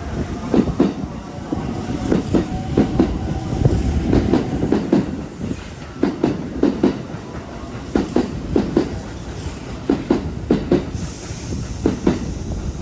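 Kintetsu electric train passing over the level crossing, its wheels clacking over the rail joints in a steady run of knocks, mostly in close pairs as each bogie's axles go over, above a continuous rumble.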